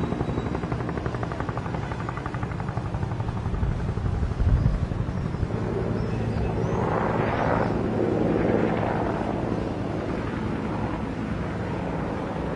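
Two-bladed Huey-type military helicopter flying past, its rotor giving a steady rapid chop. There is a single low thump about four and a half seconds in, and the rotor noise swells fuller around the middle as the helicopter comes closer.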